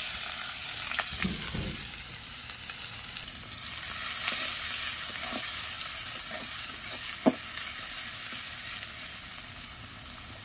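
Sliced onions sizzling as they fry in hot mustard oil in a metal kadai, stirred with a metal spatula that scrapes and taps the pan now and then, with one sharp clack about seven seconds in. The sizzle fades gradually toward the end.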